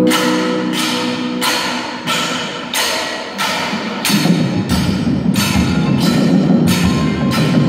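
Indoor drumline and front ensemble playing: sharp, evenly spaced strikes about one and a half a second, with a fuller, denser layer of drums and mallets joining about four seconds in.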